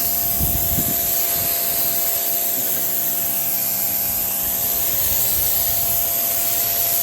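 Electric pressure washer running on turbo mode: a steady high hiss of the water jet on the surface over the even hum of the motor.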